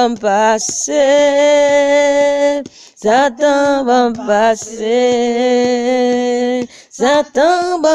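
A voice singing a prayer chorus, with short sung syllables and two long held notes of about two seconds each.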